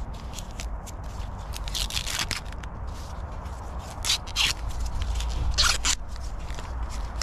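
Sweetcorn husk leaves being torn and peeled back from the cob by hand: several short crisp ripping rustles, the loudest about four and five and a half seconds in.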